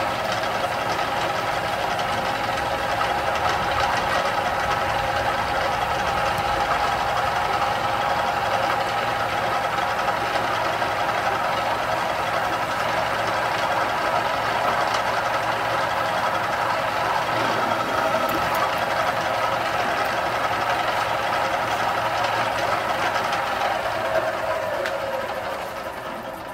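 Drill press spindle running a 1.5-inch countersink bit as it chamfers a 1.5-inch hole in thick steel plate: a steady machine hum of several tones. Near the end the spindle winds down, its pitch falling as the sound fades.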